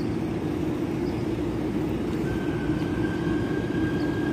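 City bus idling at the stop: a steady low engine drone, with a thin high whine joining a little over two seconds in and holding.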